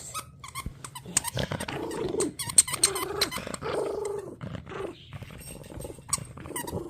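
A dog growling in play over a squeaky toy, with repeated short squeaks and clicks from the toy as it is chewed.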